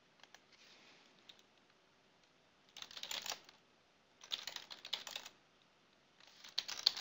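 Typing on a computer keyboard in three short bursts of quick key clicks, after a few faint clicks in the first second or so.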